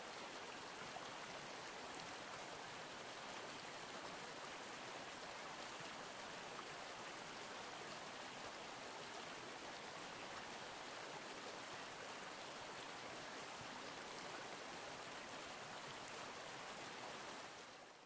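Steady rush of a flowing stream, with no birdsong over it, fading out near the end.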